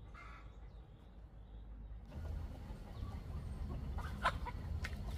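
Chickens clucking: a few short, sharp clucks in the second half, the loudest about four seconds in, over a low steady hum.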